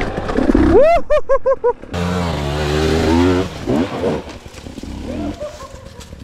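Two-stroke dirt bike engine revving up and down as it is ridden at a rocky climb, its pitch rising and falling repeatedly and dropping back in the second half.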